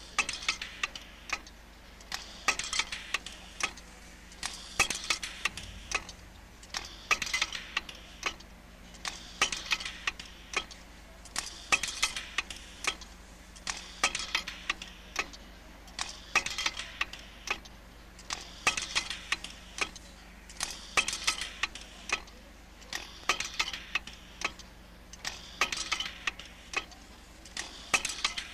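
Automated watch-assembly machinery clicking and clattering in repeating cycles, a cluster of sharp clicks about every two seconds, over a faint steady hum.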